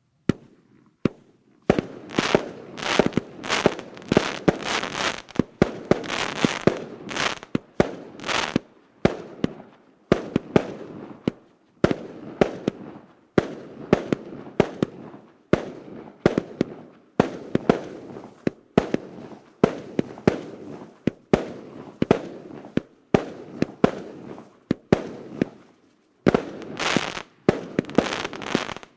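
A multi-shot consumer fireworks battery, 'Novogodny Bespredel' RK8064, firing its shots in quick succession, roughly one a second. Each shot is a sharp bang followed by a noisy tail, with a brief lull near the end before the shots resume.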